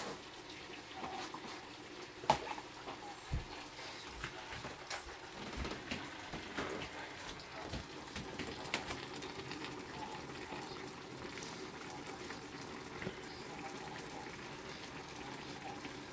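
Sukiyaki simmering in its pot, a faint steady bubbling, with scattered light clicks and a few low knocks of utensils; the sharpest click comes about two seconds in.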